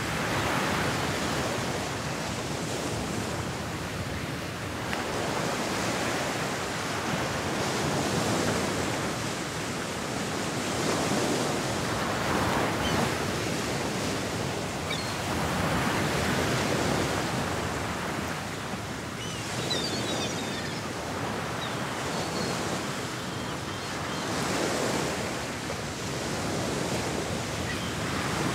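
Ocean surf: a steady wash of waves swelling and ebbing every few seconds. A few faint chirps come about two-thirds of the way through.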